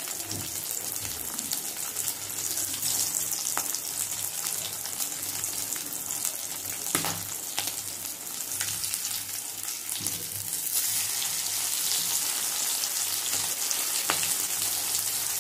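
Semolina-coated fish frying in oil in a kadai: a steady sizzle and crackle that grows a little louder about two-thirds of the way in. A few sharp clicks come from the steel tongs as they turn and press the fish.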